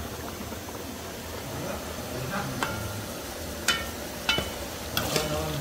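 Metal spoon stirring julienned carrots and raisins in an aluminium pot, knocking against the pot several times in the second half with short ringing clinks, over a faint frying sizzle.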